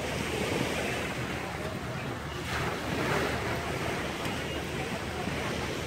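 Sea surf washing onto a beach: a steady rush of waves that swells a little about halfway through.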